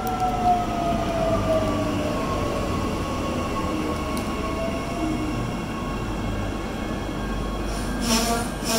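Queensland Rail suburban electric multiple unit pulling into the platform. Its motors whine and fall in pitch as it slows over a steady rumble of wheels on rail. A squeal sets in near the end as it comes to a stop.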